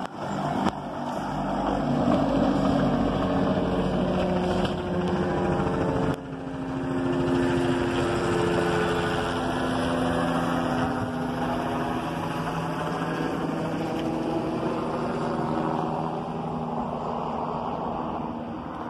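Corcovado rack railway's red electric train running downhill on the rack track, its drive giving a loud, steady hum with several held tones over a running rattle. The sound changes abruptly about six seconds in and eases off near the end.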